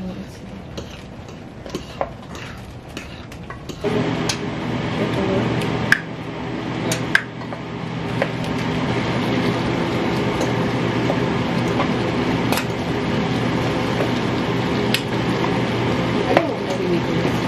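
Metal utensil scraping and clinking in a frying pan of browning ground taco meat. About four seconds in, a loud steady humming drone starts suddenly and carries on, with sharp clinks of metal on the pan now and then.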